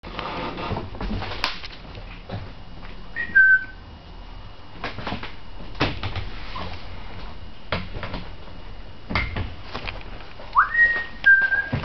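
Two whistled two-note calls, each a higher note stepping down to a lower held one. The second begins with a quick upward swoop and lasts about a second. Scattered short knocks and rattles sound between them.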